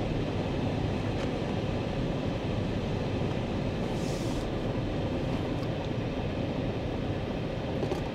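Steady road and engine noise inside the cabin of a 2021 Chevrolet Suburban Z71 cruising on a paved road, with its 5.3-litre L84 V8 running under the tyre noise. A brief hiss comes about four seconds in.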